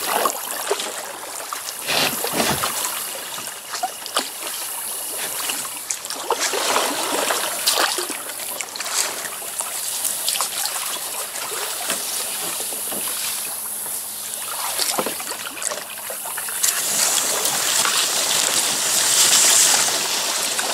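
Shallow river water trickling and splashing around a kayak, with irregular sharp splashes throughout.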